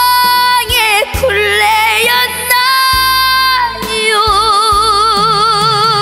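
A girl singing a trot ballad live over band accompaniment, holding long notes; the last one, from about four seconds in, carries a wide, even vibrato.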